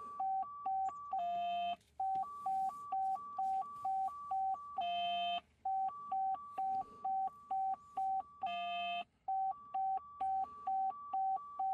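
Electronic warning beeper sounding a fast two-note alternating beep, about three high-low pairs a second. Three times it is broken by a longer, buzzier half-second tone, roughly every three and a half seconds.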